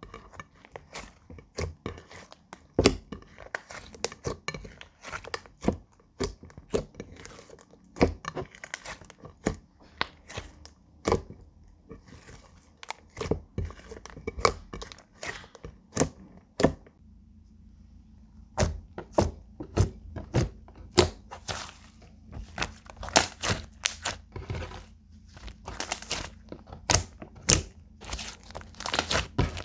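Clear slime being squished, pressed and stretched by hand, giving a dense run of sharp, irregular clicks and pops, with a short pause a little past the middle.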